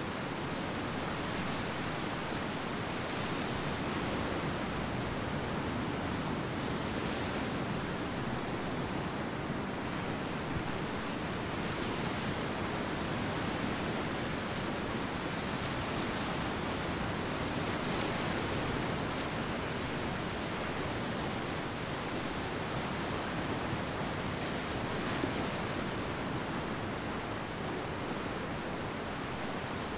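Ocean surf washing onto a beach: a steady rush of breaking waves that swells and eases slightly.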